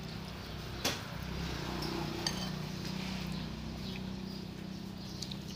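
Eating utensils clinking against a noodle bowl, two sharp clinks about a second apart and a few lighter taps, over a steady low hum.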